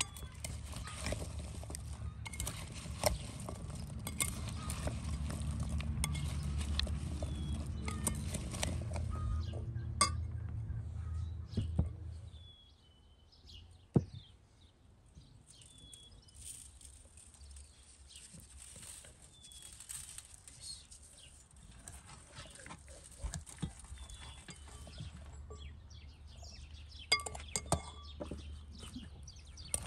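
Metal spoon stirring chopped vegetables in a glass bowl, with a steady low rumble and many small scrapes and clinks. It cuts off abruptly after about twelve seconds. What follows is quieter, with birds chirping, one sharp click, and a few clinks near the end.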